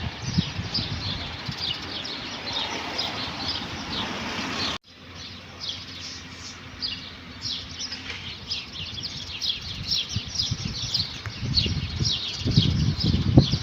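Many small birds chirping, with short, quick calls overlapping without pause. About five seconds in, the sound cuts abruptly to another stretch of the same chorus. Low rumbling noise sits under the birds at the start and comes back near the end.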